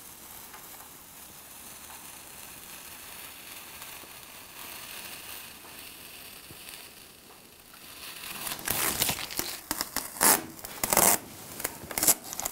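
Masking tape being peeled off a painted wall: at first only a faint, steady noise as it comes away slowly. From about eight and a half seconds in there are loud, irregular crackles and rustles as the tape is pulled free and crumpled in the hand.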